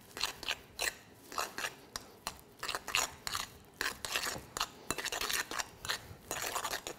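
Metal spoon stirring a soft vegan butter paste in a ceramic bowl: a steady run of short scrapes and clinks against the bowl, about two strokes a second.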